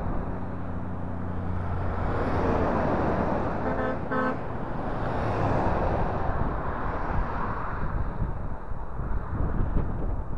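Heavy trucks passing on a highway, with engine drone and tyre noise swelling and fading. A vehicle horn gives two short toots about four seconds in.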